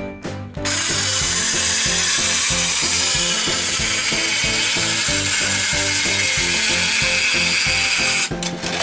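Motorised plastic gear lift of a Pororo minicar slide playset running loudly and steadily as it carries a toy car up the tower; it starts about a second in and cuts off abruptly near the end as the car reaches the top. A simple repeating tune plays underneath.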